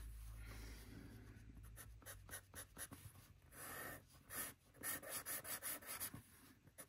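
Pastel pencil scratching faintly across sketchbook paper in a run of short back-and-forth strokes, starting about two seconds in.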